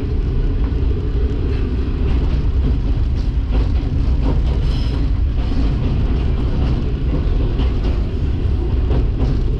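Diesel railcar on the move: a steady low rumble of engine and wheels on the rails, with faint clicks now and then.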